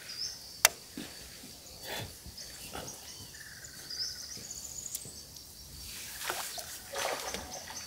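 Quiet riverside ambience: birds chirping over a steady high insect drone, with one sharp click a little under a second in.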